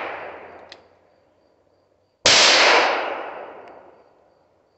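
A Taurus 605 revolver firing a single .38 Special +P round about two seconds in, the report echoing off the trees and dying away over about two seconds. The echo of the previous shot is still fading at the start.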